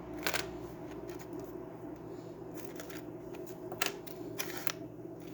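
A few light clicks and rustles from small objects being handled, over a low steady room hum.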